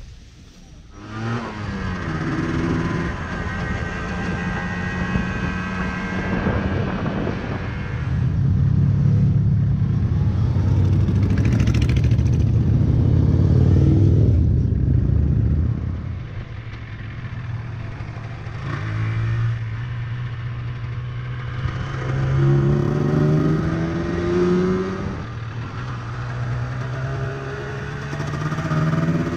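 1991 Yamaha TZR125's single-cylinder two-stroke engine pulling away and accelerating through the gears, its pitch climbing with each pull. It eases off about halfway through, then picks up again in short rising pulls through the bends.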